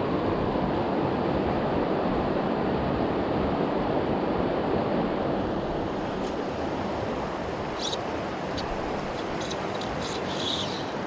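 River water rushing steadily past, an even wash of noise, with a few faint ticks late on.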